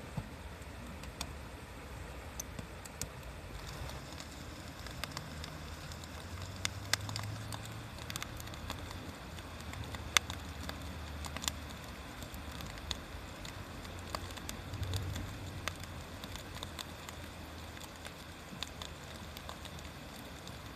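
Wood bonfire crackling steadily, with sharp pops every second or so, the loudest about ten seconds in, over a soft hiss and a low rumble.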